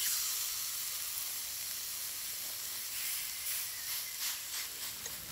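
Rib-eye steak sizzling steadily in a cast-iron skillet on a high heat.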